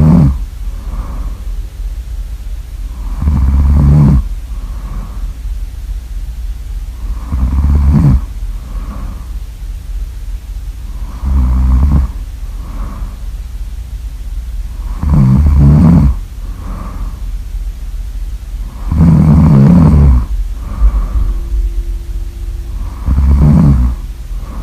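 Loud snoring: a rough snore about every four seconds, seven in all, each followed by a softer breath out. A steady low hum runs underneath.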